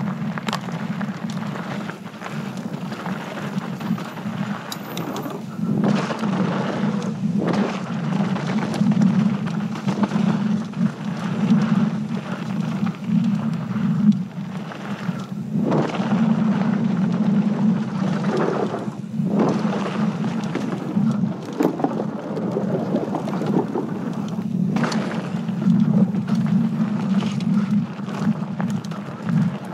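Mountain bike ridden fast down a dirt and gravel trail: steady wind rumble on the microphone over the crunch and hiss of knobby tyres rolling on dirt and loose gravel, with several sharp clatters from the bike jolting over bumps.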